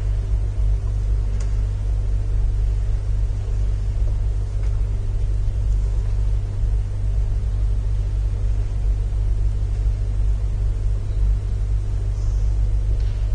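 Steady low rumble with a couple of faint clicks; no speech or music.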